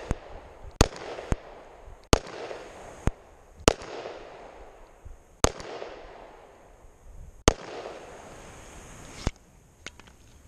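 Glock 19 9mm pistol being fired, about five loud shots spaced a second or two apart, each followed by a short echo. A few quieter sharp cracks fall between the shots.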